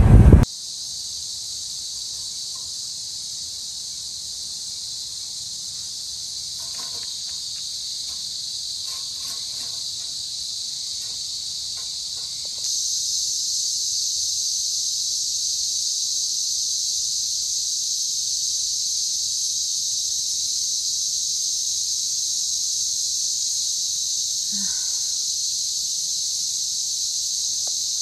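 Cicada chorus: a dense, steady, high-pitched drone that gets louder about halfway through.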